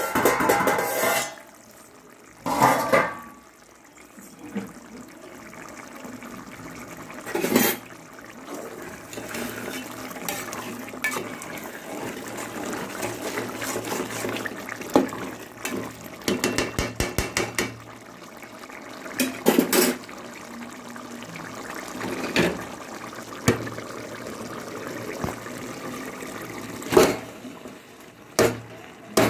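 Steel cooking pots and a serving spoon knocking and scraping, with water pouring and splashing as parboiled rice in its starchy cooking water is moved into the biryani pot. Midway there is a quick run of about eight taps.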